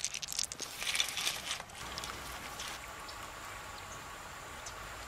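Small water splashes and drips with quick clicks for the first second and a half, as hands work in shallow river water among rocks, then the faint steady sound of flowing river water.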